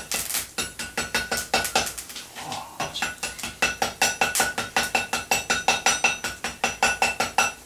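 Hand hammer tapping lightly and rapidly on a hot steel billet of bicycle spokes and chain on an anvil, about four to five ringing taps a second with a short pause about a third of the way in. These are the first light taps that set a forge weld.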